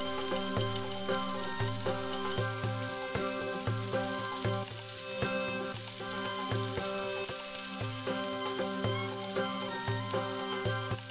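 Hot oil sizzling as whole spices and ginger-garlic paste fry in a stainless steel pot, with a wooden spoon stirring near the end. Background music with a steady beat plays underneath.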